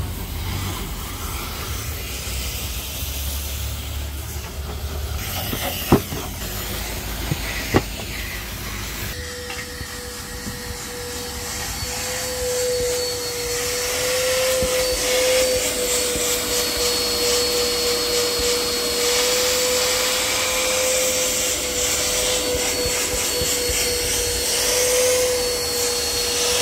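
Vacuum cleaner running and sucking. About nine seconds in its sound changes to a steady high whine with louder hiss, after two sharp knocks a little before.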